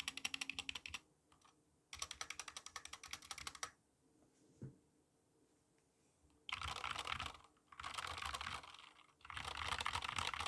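Stock, unlubed Epomaker GK68XS mechanical keyboard typed on, its Gateron Black linear switches and plastic XDA keycaps clacking. Two runs of quick separate keystrokes, a single stroke, then three faster, denser bursts of typing over the last four seconds.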